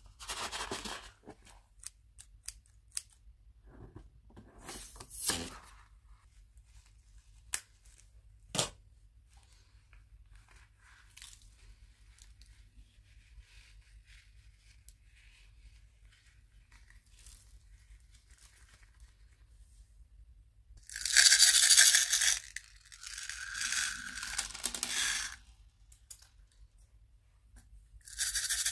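Plastic packaging being handled and sprinkles being poured while slime toppings are added: scattered light clicks, then two loud rustling, tearing bursts about two-thirds of the way in and a shorter one near the end.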